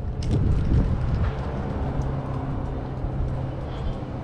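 Street traffic outdoors, with a vehicle engine's steady low hum through most of it and rumbling wind on the microphone.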